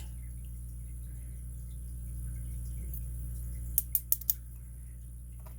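Small parts of a disassembled padlock core being handled: four quick, light clicks in a row a little under four seconds in, over a steady low hum.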